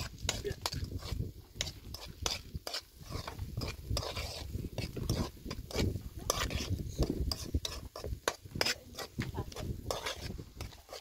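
Stirring and scraping with a tool or utensil: many quick, irregular scrapes and light knocks.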